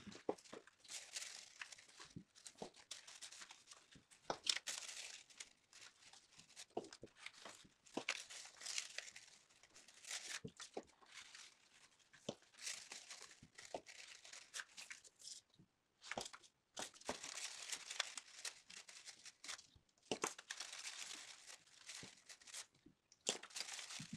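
Faint, irregular rustling and crinkling of construction-paper strips as they are rolled into loops and pinched together into a paper chain, with scattered soft clicks.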